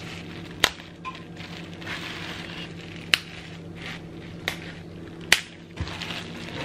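Toothpick piercing a taut plastic oven bag: four sharp pops spread across a few seconds, with soft crinkling of the bag's plastic between them.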